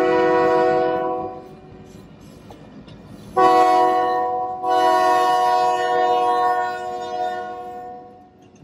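Union Pacific diesel locomotive's air horn sounding a chord for a grade crossing. There is one long blast, then after about two seconds another long blast with a brief break in it, trailing off near the end, over the low running of the locomotives.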